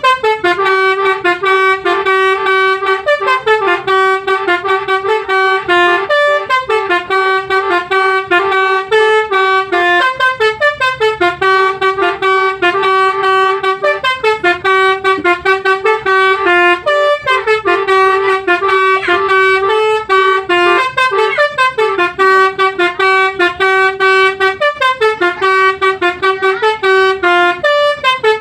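Basuri V3 telolet bus horn playing a tune: a loud string of quick, pulsing horn notes whose phrase, with a falling slide, repeats about every four seconds.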